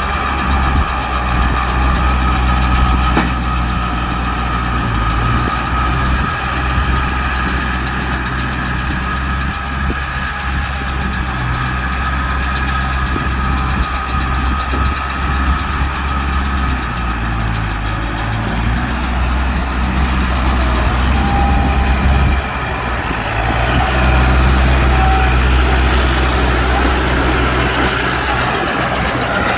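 Tractor engine running steadily while working a Bharat Baler 9060, with a constant low hum and a steady mechanical whine above it. The sound dips briefly about two-thirds of the way through, then runs slightly louder.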